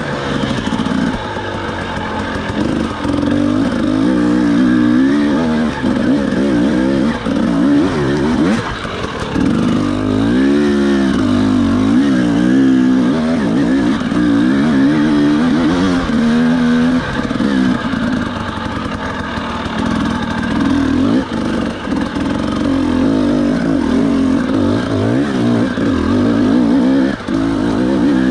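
FPV quadcopter motors and propellers whining, the pitch swinging up and down constantly with the throttle, and zigzagging fastest about ten seconds in.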